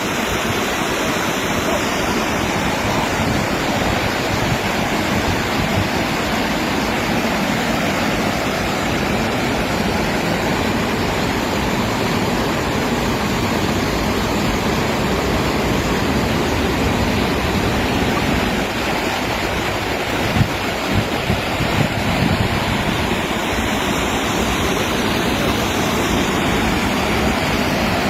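Water pouring steadily over an overflow weir, a constant rushing noise, with a few brief louder knocks about twenty seconds in.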